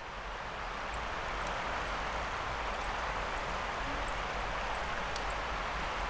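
Steady rushing of a mountain creek flowing nearby, fading up at the start. A few short, faint high chirps are scattered over it.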